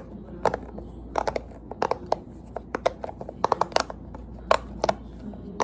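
Silicone pop-it fidget toy being pressed quickly, its bubbles popping in a string of sharp irregular clicks, some in quick runs of three or four.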